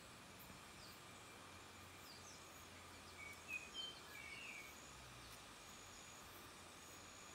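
Quiet forest ambience: faint, scattered bird chirps, with a brief cluster of louder calls about three and a half seconds in, over a faint steady high insect tone.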